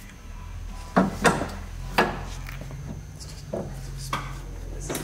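Sharp metal clinks and knocks of hand tools and parts against the car's front suspension, about six separate knocks, the loudest around a second in and at two seconds, over a steady low hum.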